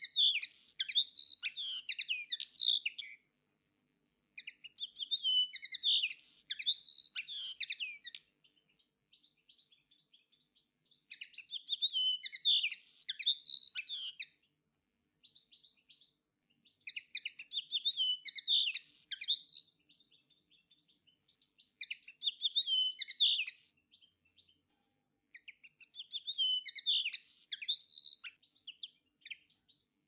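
Common linnet singing: about six bouts of fast, varied twittering song, each two to four seconds long, mixing trills, whistles and creaky notes, with short pauses between bouts.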